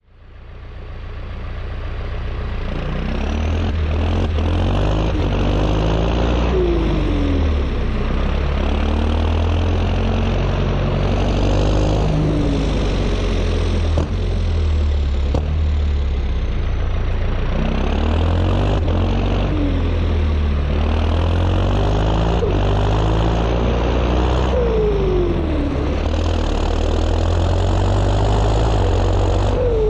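Chipped John Deere 6230 turbo diesel engine working under load towing a trailer of muck, its revs climbing and then falling away several times as gears are changed, with a faint turbo whistle rising and falling above it. The sound fades in over the first few seconds.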